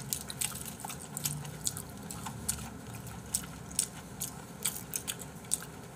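Close-miked chewing of raw fish and lettuce wraps: wet mouth clicks and smacks, irregular, about twice a second.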